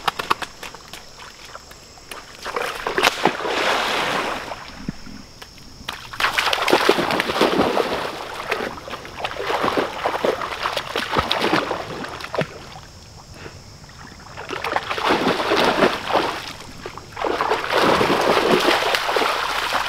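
A Cane Corso puppy splashing and sloshing through shallow muddy pond water as it plays with a stick, in repeated bouts of a few seconds with quieter gaps between.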